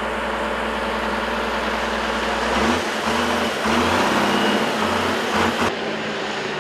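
Diesel engine of a motor grader running, under a steady rushing hiss; the engine note changes about a third of the way in.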